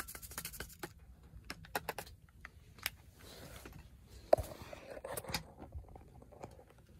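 A utensil stirring quickly in an enamel camp mug, clicking against its sides in rapid ticks for about the first second. Then scattered clicks and rustling, with a sharp knock a little after four seconds in.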